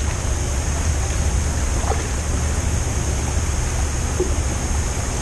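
Steady open-water ambience: a constant low rumble with a hiss over it, from water and wind around the boat. A couple of faint ticks near the middle, but no clear reel cranking or drag.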